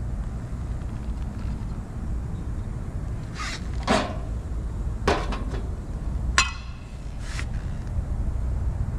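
Metal clanks and clinks of tools and parts being handled during hands-on repair work, about five sharp knocks between about three and a half and seven and a half seconds in, one of them ringing briefly. A steady low rumble continues underneath.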